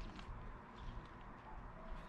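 Faint outdoor background: a low rumble with a few faint clicks and rustles, and no clear single event.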